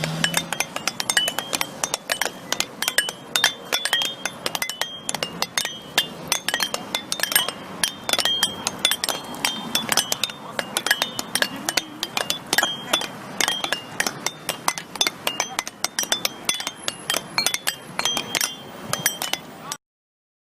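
A rapid, irregular series of sharp clinks and knocks of hard objects striking one another, several a second, with a short metallic ring. The sound cuts off abruptly near the end.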